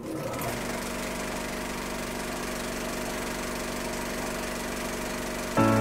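A steady mechanical whirr with a fixed hum and a fast, even pulse, like a small motor running. Near the end it gives way to loud swing-band music.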